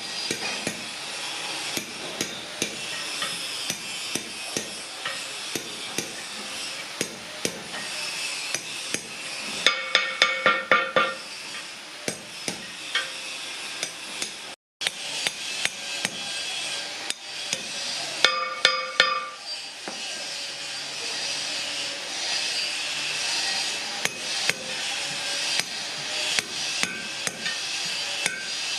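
Hammer blows on bronze: many sharp taps, with two spells of quick strikes that ring out in clear metallic tones, about a third and about two thirds of the way through.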